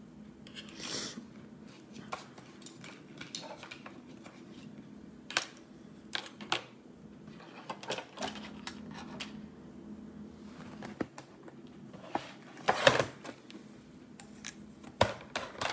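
Scattered light clicks and taps of small objects being handled and set down, with a louder burst of handling noise about 13 seconds in and a few more knocks near the end, over a low steady hum.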